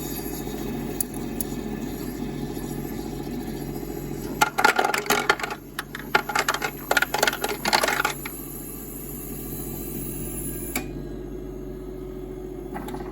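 Ice machine running with a steady hum, and a clatter of ice cubes dropping into the bin for about three and a half seconds in the middle, as a batch of ice is released. A high hiss cuts off near the end.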